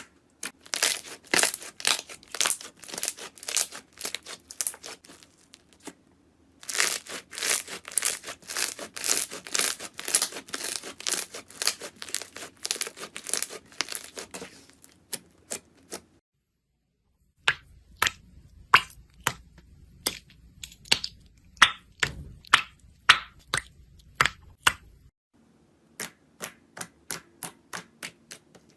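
Slime being squeezed and pressed by hand, giving rapid runs of sharp crackles and pops. It comes in several separate stretches with short breaks between them, and near the end the pops slow to about three a second.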